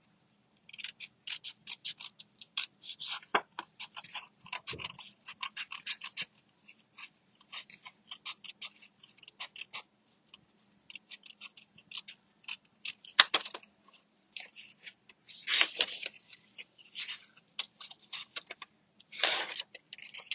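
Scissors fussy-cutting stamped paper: rapid runs of short snips with brief pauses, and a couple of louder rustles of the paper being handled in the second half.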